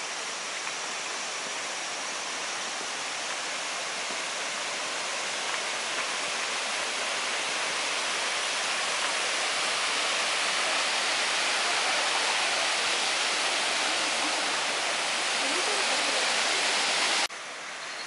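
Rushing water of a mountain stream tumbling over small cascades: a steady hiss that slowly grows louder, then cuts off suddenly near the end, leaving a quieter background with faint steady high tones.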